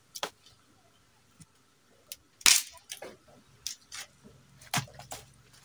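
Dry firewood sticks cracking as they are broken by hand into smaller pieces: about six short, sharp cracks, the loudest about two and a half seconds in.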